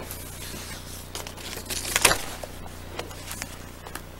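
A man drinking water from a cup: scattered rustles, light knocks and handling noises of the cup and his clothing, loudest about two seconds in, over a steady low electrical hum.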